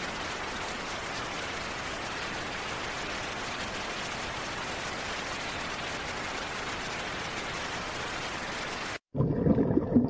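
Steady rain, an even hiss of falling drops, which cuts off abruptly about nine seconds in. A louder, deeper water sound starts right after.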